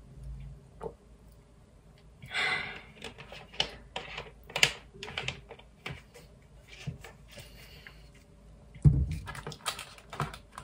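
Scattered clicks and taps with a short rustle about two seconds in and a dull thump near the end: small objects being handled.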